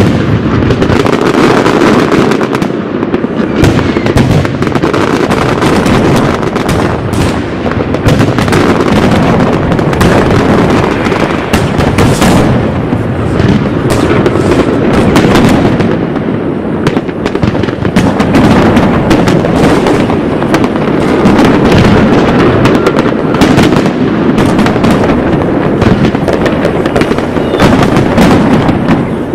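Continuous barrage of fireworks: many overlapping bangs and crackles with no lull.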